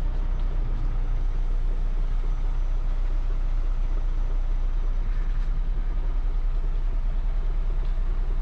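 Concrete mixer truck's diesel engine running steadily with the drum turning, heard from inside the cab, as it discharges the last of its load.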